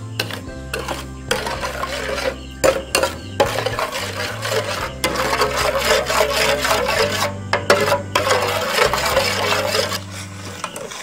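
Metal spatula scraping and stirring dry granulated sugar around a metal pan as it heats toward caramel, in a gritty, rasping stream of strokes that drops away about ten seconds in. Background music with a steady bass line plays underneath.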